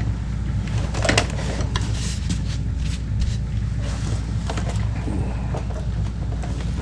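Scattered light clicks and knocks of a model locomotive being handled and turned onto its side on a workbench, with a sharper knock about a second in, over a steady low hum.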